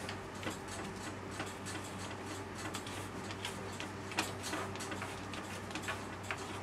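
Irregular light clicks and taps from a small dustpan and brush sweeping up debris at a wire cage, a few a second with a sharper one about four seconds in, over a steady low hum.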